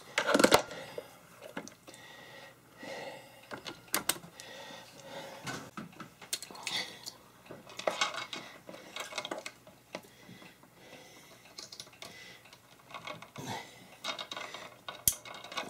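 Irregular small clicks, taps and rattles of hands handling a radio's plastic hand microphone and its power-cord connector, the sharpest clack just after the start.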